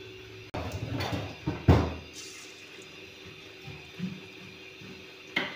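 Onion pakora batter frying in hot oil in an aluminium kadai, a faint steady sizzle. A few knocks and clatters from the pan and stove come in the first two seconds, and one sharp click near the end.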